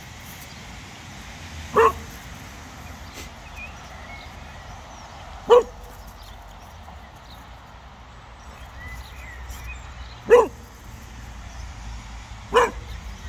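Cocker spaniel barking at a snowman it is wary of: four short single barks, each a few seconds apart.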